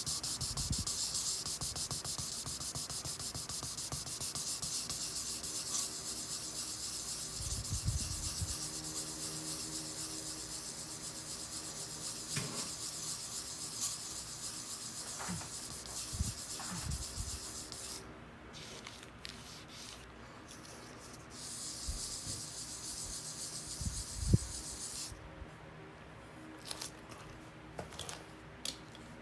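Sandpaper rubbed by hand over a wooden floorboard in rapid short strokes, a dry scratchy hiss. It runs steadily for a long spell, pauses, starts again briefly, and a sharp tap comes near the end.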